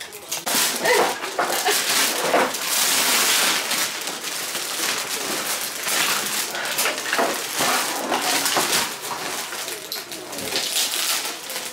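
Paper rustling and crinkling, with scattered crackles and tears, as a gift is unwrapped.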